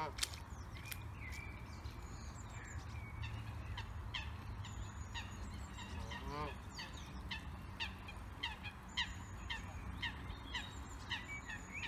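Canada goose giving short honks, one right at the start and another about six and a half seconds in, over steady background chirping of small birds.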